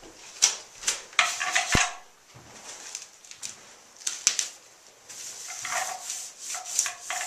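Handling noises: rubbing and scraping with scattered sharp knocks and clatters.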